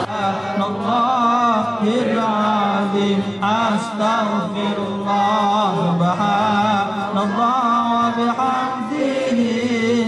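A group of men chanting Islamic dhikr together, a steady held drone of voices under a wavering melodic line.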